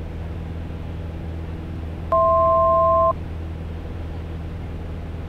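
Steady drone of a Piper Cherokee's single piston engine in cruise-climb, heard through the cockpit headset audio. About two seconds in, a single electronic beep of two steady tones at once lasts about a second and is the loudest sound.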